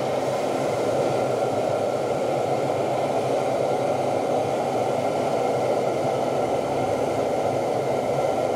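Steady, unbroken blowing noise, like a large fan or blower running evenly, with a faint steady hum in it.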